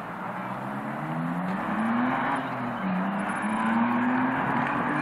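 A motor vehicle's engine accelerating: its pitch rises, drops about two and a half seconds in, then climbs again, over a steady hiss.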